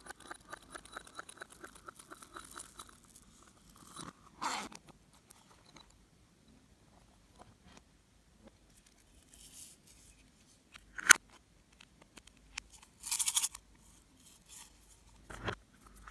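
Slime being squeezed and worked by hand with clay and glitter mixed in, giving small crackling clicks at first and then a few sharper pops and short crunchy crackles.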